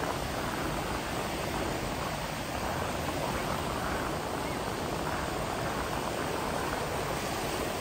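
Steady rushing beach ambience, with wind and surf, at an even level and with no separate events standing out.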